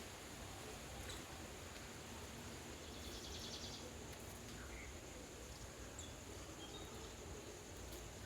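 Faint outdoor ambience: a steady hiss with a few soft clicks and small high chirps, and a short, rapid high trill about three seconds in.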